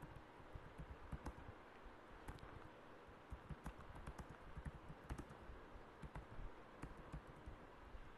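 Computer keyboard typing: faint, irregular key clicks over a low steady background noise.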